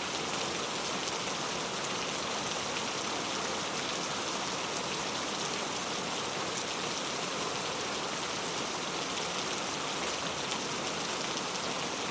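Steady rain falling into a puddle and on the ground around it: an even hiss with many fine drop impacts and no thunder.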